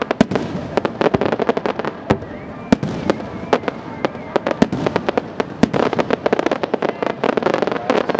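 Aerial fireworks going off in quick succession: a dense, constant run of sharp bangs and crackles.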